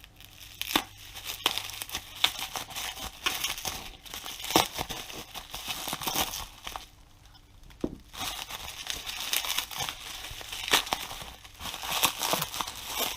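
Bubble wrap being cut open with a knife and pulled apart: crinkling and tearing plastic with sharp crackles, pausing for about a second a little past the middle.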